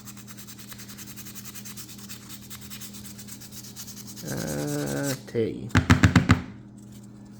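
Sandpaper rubbed quickly back and forth over a rusty pocket-knife, a fast, even scratching for about four seconds as the rust is worked off. Near the end there is a brief voiced sound and a short burst of loud, rapid pulses.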